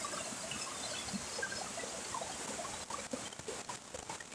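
Shallow rocky stream trickling between boulders, with a few faint clicks about three seconds in.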